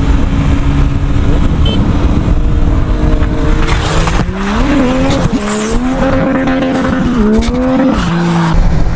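Sport motorcycle engine running at speed under heavy wind rush. From about four seconds in, the revs climb and fall several times, then settle to a steadier, lower note near the end.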